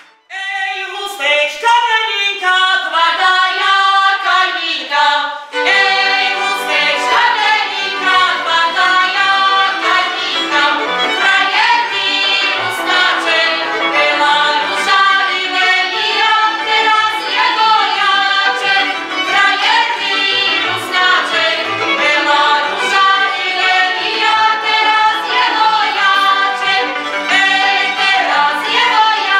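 Slovak folk song for the karička circle dance, sung by women. A single voice sings the opening line alone, then a group of voices joins in about five seconds in and carries on over a steady beat of sharp taps.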